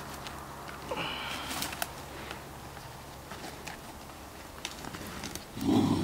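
Dry grass, twigs and brush rustling and snapping as a trap set is handled by hand and with a stick, with scattered clicks. A short, louder low-pitched sound comes near the end.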